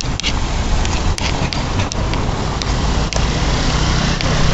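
Steady outdoor street noise with a heavy low rumble, likely traffic and wind on the microphone, broken by a few sharp clicks.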